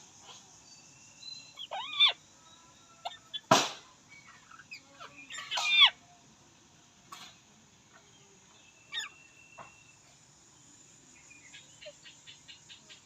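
Alexandrine parakeet calling in separate bursts: short whistles and screeches that bend in pitch, with one loud harsh squawk about three and a half seconds in. A quick run of soft ticks comes near the end.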